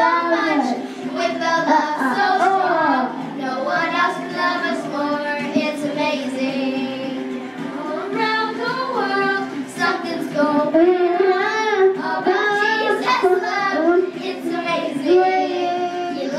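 Young children singing a song together: a toddler sings into a handheld microphone while older children sing along.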